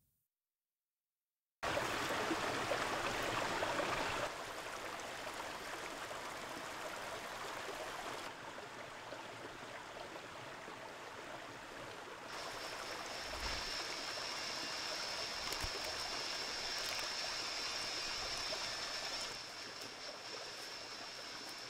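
Running water of a stream, a steady rushing hiss that starts after about a second and a half of dead silence and shifts in level a few times. About halfway through, a steady high-pitched whine joins it.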